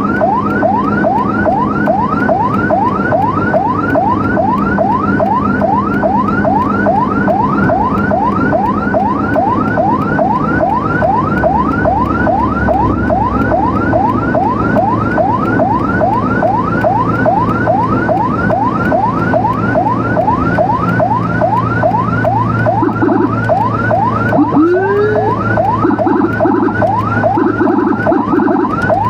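Emergency vehicle siren on a fast yelp: rising sweeps about three a second over a steady engine hum. Near the end a second siren starts up, rising and then pulsing alongside it.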